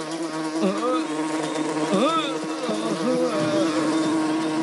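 Animated giant beetle buzzing in flight: a steady insect-wing drone, with wavering chirps that swoop up and down in pitch over it.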